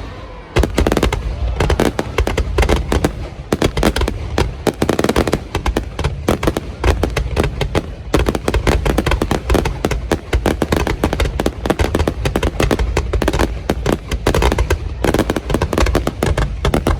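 Fireworks going off in a dense, continuous barrage of sharp bangs and crackles, many per second, like rapid gunfire.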